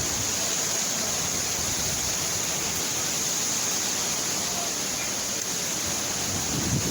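Hurricane storm noise: a steady rushing hiss of wind and driving rain that holds even throughout.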